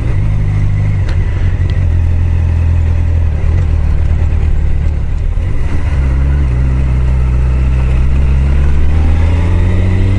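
Honda CBR1000F's inline-four engine running while under way, heard through a helmet microphone. The engine note holds steady, drops about halfway through, then climbs toward the end as the revs pick up.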